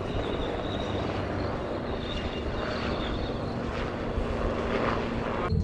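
HAL Dhruv twin-turboshaft helicopter flying past: a steady, harsh rotor noise with a faint high turbine whine over it.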